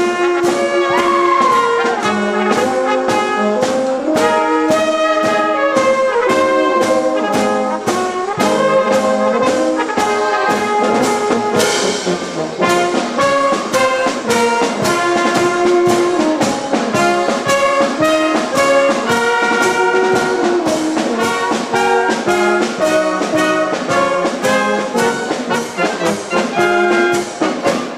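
Alpine brass band music played live: rotary-valve tubas and tenor horns carry the melody and bass over a steady beat of bass drum and hand cymbals, with one loud cymbal crash near the middle.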